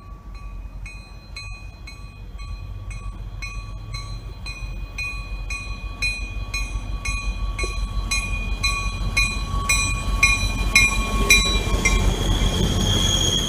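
Grade-crossing warning bell ringing about twice a second as an MBTA commuter train, led by a diesel locomotive, approaches with a steadily rising rumble. Near the end the bell stops and a high steady squeal sets in as the bilevel coaches pass.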